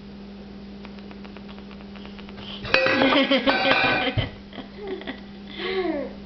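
Toy dishes and pots clattering together in a loud rattling run of about a second and a half, starting a little under three seconds in, over a steady low hum. Two short falling-pitch calls follow near the end.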